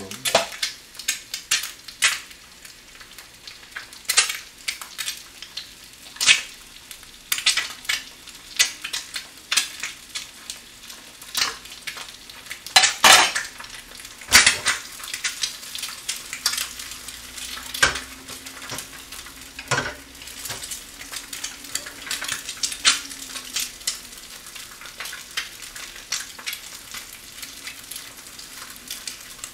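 An egg frying in a small rectangular egg pan, with a steady sizzle, over which dishes and utensils clink and clatter again and again as side dishes are set out, loudest in a burst about halfway through.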